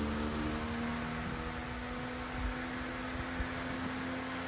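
All-metal retro pedestal fan running on its highest speed: a steady rush of air with a constant motor hum.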